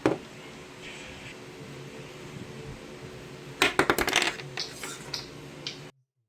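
Sharp, light clinks and clicks of small hard objects knocking together: one at the start, a quick cluster about three and a half seconds in, and a few scattered ones after. The sound cuts off abruptly near the end.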